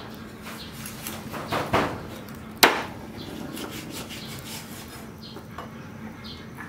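Meat cleaver cutting raw fish on a wooden chopping block: one sharp chop about two and a half seconds in, the loudest sound, with a softer stroke just before it and lighter cutting clicks after.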